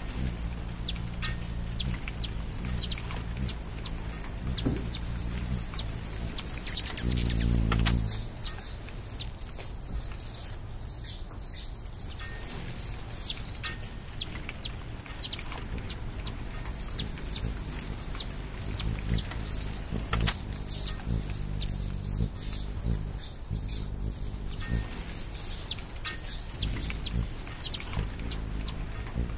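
Nature ambience: a steady, high-pitched insect-like trill that drops out for about two seconds near the middle, with scattered short chirps and ticks.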